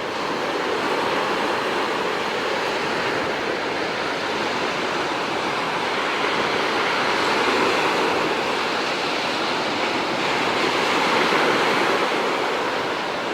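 Sea surf breaking and washing onto a stony beach: a steady rush of water that swells louder twice, about halfway through and again near the end.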